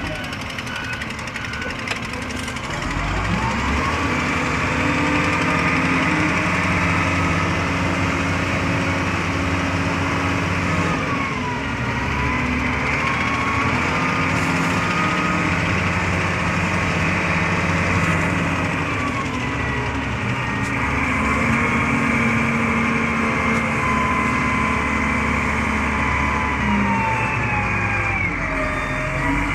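Wheel loader's diesel engine heard from inside the cab, working under load: it revs up a few seconds in, then dips and climbs again several times as the loader carries and lifts a bucket of sand, with a whine that rises and falls along with the revs.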